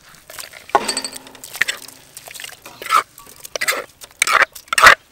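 A hand squishing and stirring curry paste into coconut milk in a stainless steel bowl: liquid splashing in irregular bursts, the loudest two near the end, with light clinks against the bowl.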